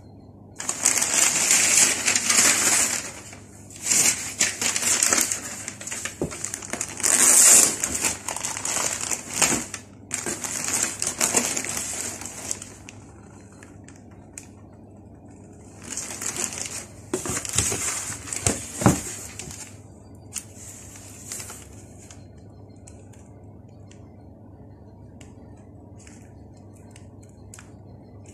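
Plastic packaging rustling and crinkling in irregular bursts as it is handled, in two long stretches with a few sharp clicks among them, dying away about twenty seconds in.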